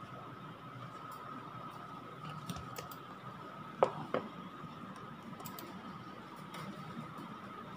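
A few sharp computer mouse clicks, the two loudest a third of a second apart about four seconds in, over a faint steady electrical whine.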